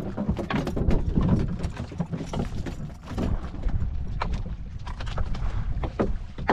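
Irregular knocks and clatter on a small fishing boat, over a steady low rumble.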